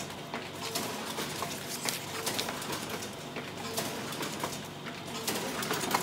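Pitney Bowes Relay 4500 folder-inserter running, a steady mechanical whir with scattered clicks and a short repeating tone every two to three seconds.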